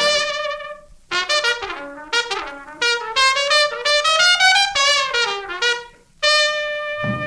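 Unaccompanied trumpet solo: a held note, a quick phrase of short notes sliding up and down, then another held note, each separated by a brief break. A band's bass comes in right at the very end.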